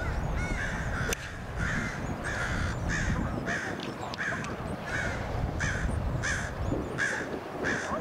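A bird calling over and over in short, evenly spaced calls, nearly two a second.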